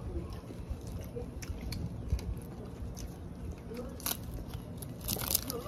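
Chewing and crunching of crispy bánh xèo, the thin fried rice-flour crepe. A few sharp crackles come as the crisp crepe is taken and broken by hand, the clearest about four seconds in and a short cluster near the end.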